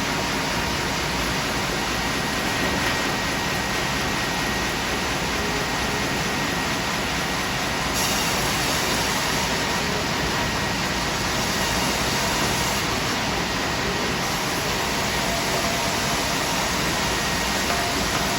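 Large double-cut band sawmill running: a steady, loud mechanical noise with a thin whine, the hiss growing brighter about eight seconds in.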